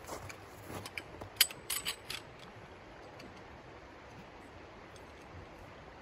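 A quick run of sharp clicks and clinks from small hard objects being handled, the loudest about a second and a half in, then only a faint steady hiss.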